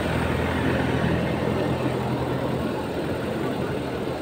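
An engine running steadily at idle, a low hum that eases off about three seconds in, over a steady rushing noise.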